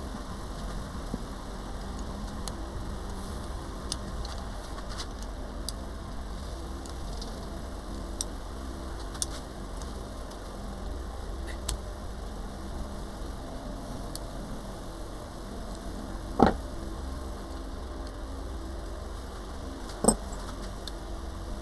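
Light metallic clicks and tool-handling noises from working on a motorcycle fork, with two sharper knocks near the end, over a steady low hum.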